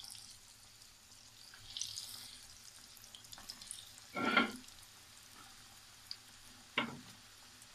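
Bread-crumbed potato balls frying in hot oil in a metal wok, a faint sizzle. Two short knocks cut through it, the louder about four seconds in and a smaller one near the end.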